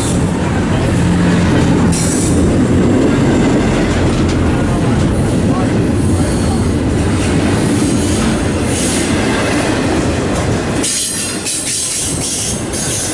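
Double-stack intermodal container freight train rolling past at close range, its wheels running steadily and loudly on the rails.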